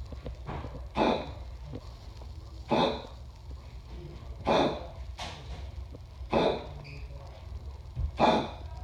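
A dog with congestive heart failure coughing in short, harsh, congested bursts, five times at about two-second intervals.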